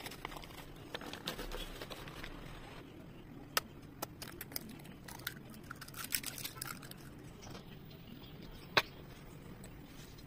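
Food-prep handling sounds at a steel mixing bowl: rustling, scattered clicks and sharp knocks against the bowl as flour and an egg go in, then a hand mixing the flour and egg. The two loudest knocks come about three and a half and nine seconds in.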